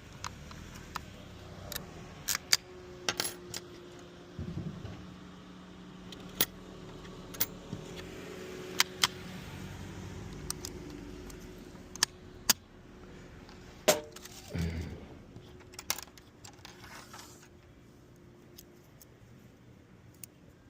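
Keys and small metal lock parts being handled: a string of sharp metallic clicks and clinks, over a steady low hum that dies away near the end.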